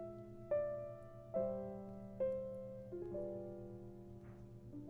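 Slow, gentle background piano music: single notes struck about once a second, each ringing and fading before the next.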